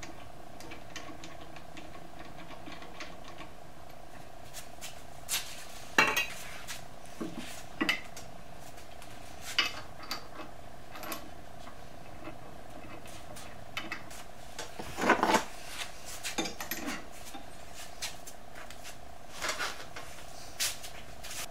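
Motorcycle handlebars and their metal clamp parts clinking and knocking as the bars are set into the top clamp and the clamp is fitted by hand: scattered light clicks, a small cluster of knocks about fifteen seconds in the loudest. A steady hum runs underneath.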